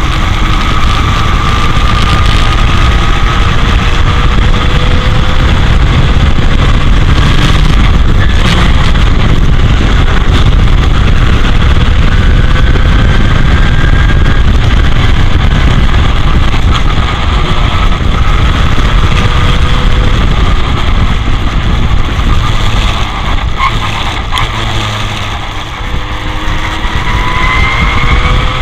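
Heavy wind noise buffeting a suction-cup-mounted camera in the open cockpit of an '84 Royale S2 sports racer at racing speed, with the engine fainter beneath it, its pitch climbing and falling with the revs. The sound eases off briefly about 25 seconds in, then the engine pitch climbs again near the end.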